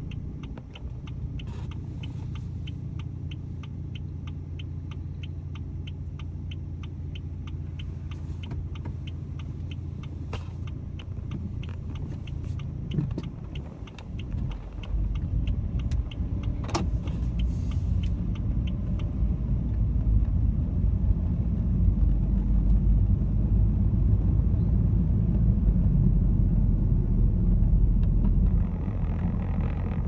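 A car heard from inside the cabin, its engine idling steadily under a fast, even ticking. About halfway through the car pulls away, and a louder low rumble of tyres and engine builds as it drives over the snow-covered road.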